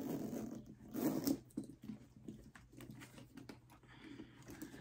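Faint rustling, scraping and soft knocks from a leather handbag being handled and opened.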